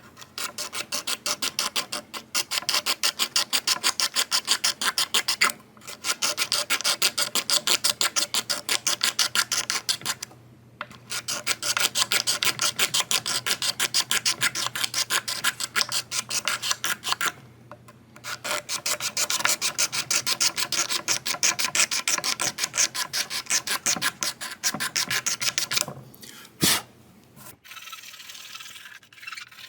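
Straight razor blade scraping rapidly back and forth along a guitar's wooden fretboard, taking off built-up grime and a thin layer of old surface, in long runs of quick even strokes with a few short pauses. A single sharp click comes late on.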